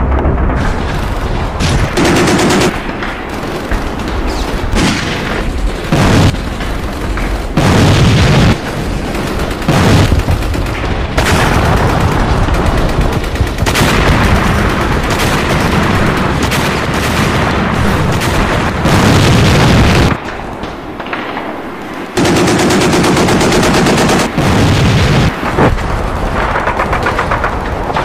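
Battle soundscape of rapid machine-gun and rifle fire going on almost without pause, broken by heavy booms now and then. The firing eases for a couple of seconds about two-thirds of the way in, then resumes.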